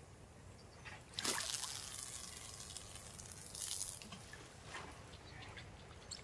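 Lake water splashing and sloshing: a sudden splash about a second in that trails off, then a second, shorter splash about halfway through, with small drips and trickles between.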